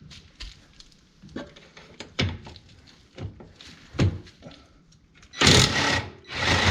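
Hand tools and metal parts being worked on a side-by-side's rear shock mount, taking out the upper shock bolt: a few separate knocks, then two louder, longer scraping rattles near the end.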